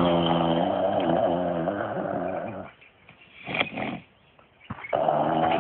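A long, drawn-out low vocal moan or growl held for about three seconds with a wavering pitch, then a pause, and the same moan starting again near the end.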